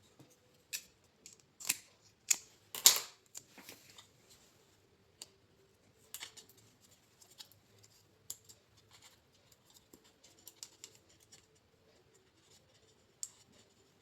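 Scissors snipping double-sided tape: a run of sharp cuts in the first few seconds, the loudest about three seconds in, followed by scattered small clicks as the tape is handled.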